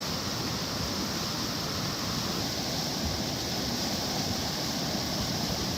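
Steady rushing of fast-moving floodwater, a flash-flood torrent.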